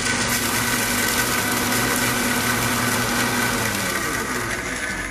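Electric mixer grinder with a steel jar running at full speed, dry-grinding roasted chana dal with green chillies: a loud, steady motor whine with grinding noise.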